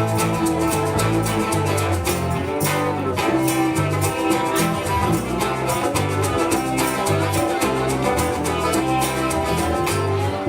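Live rock band playing an instrumental passage: electric and acoustic guitar over a stepping bass line, with a steady beat and no vocals.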